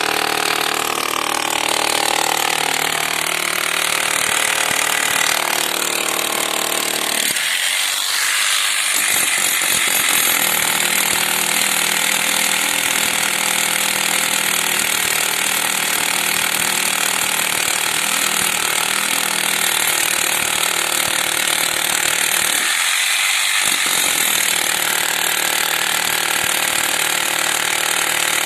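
Electric demolition hammer breaking a reinforced-concrete roof slab, running steadily, with its lower pounding dropping out briefly twice.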